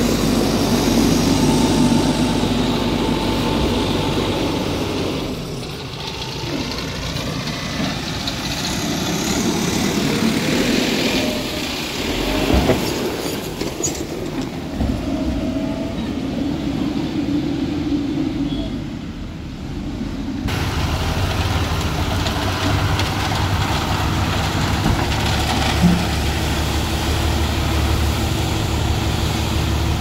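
Heavy diesel engine of a Mahindra motor grader running as it spreads gravel. About 20 seconds in, the sound changes abruptly to the steadier low drone of an Ashok Leyland tipper truck's diesel engine while the truck unloads gravel, with an occasional knock.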